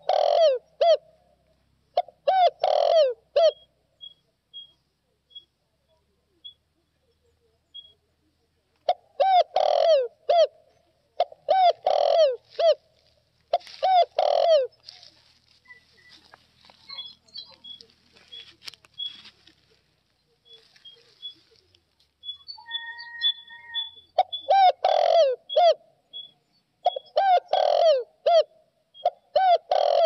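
Spotted dove cooing: repeated phrases of a few deep, curving coo notes, coming in groups with pauses of several seconds between them. Faint high peeps sound in the gaps.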